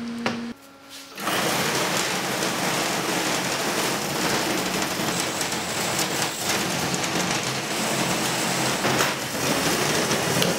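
Home-built steel tracked robot driving across a steel table, its windshield wiper motors running and its double-row roller-chain tracks rattling steadily. The rattle starts about a second in, after a brief low tone.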